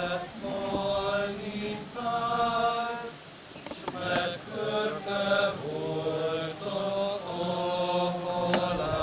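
Congregation singing a slow Hungarian recessional hymn in unison, with long held notes. A short click comes near the end.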